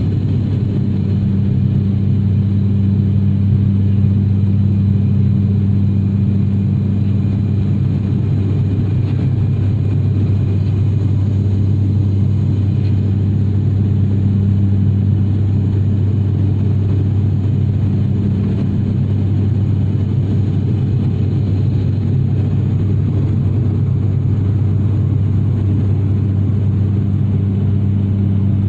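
Steady low drone of an airliner's propeller engines, holding an even pitch without change.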